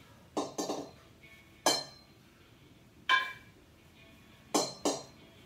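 Two 8 kg kettlebells knocking together as they are swung in double half snatches: about six sharp metallic clinks with brief ringing, a pair near the start, two single ones, and another pair near the end.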